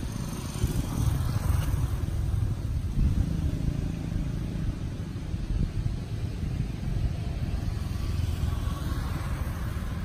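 A low, unsteady rumble of outdoor background noise, with no clear calls or knocks standing out.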